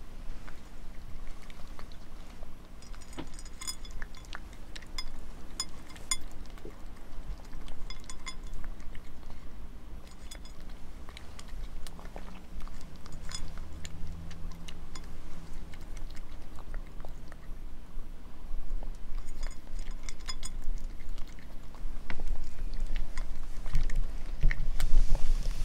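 A cat crunching dry kibble from a small ceramic plate: irregular crisp crunches, with occasional ringing clinks against the plate, getting louder in the last few seconds.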